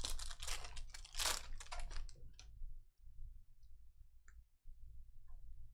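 Glossy chromium trading cards being handled and slid against one another: a quick run of clicks and swishes for about two and a half seconds, then a few scattered clicks.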